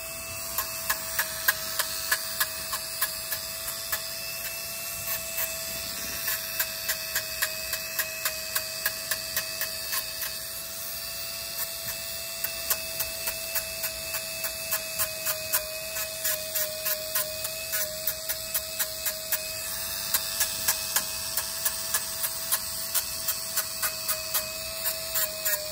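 Dremel rotary tool with a sanding drum running at a steady high whine while it is tapped again and again against a dog's toenail, each touch giving a short grinding tick, about two to three a second, as the nail is rounded off.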